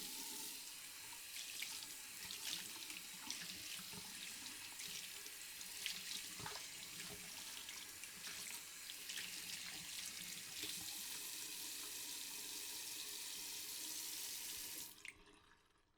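Water running from a tap into a sink while hands are washed under it: a steady rush of water broken by many small splashes. It stops abruptly about fifteen seconds in.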